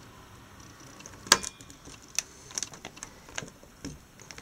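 Plastic push-pin fasteners of a stock Intel CPU cooler being pressed into a motherboard: one sharp snap a little over a second in, then several lighter plastic clicks.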